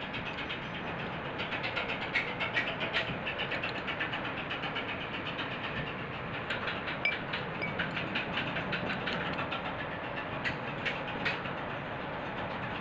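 Rapid, even mechanical ticking, with a few sharper, louder clicks about two to three seconds in.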